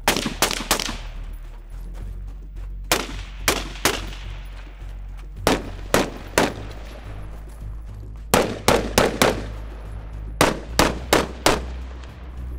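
Semi-automatic AR-pattern carbine fire: about seventeen shots in quick pairs and strings of three or four, with pauses of a second or two between strings, each shot leaving a short ringing tail.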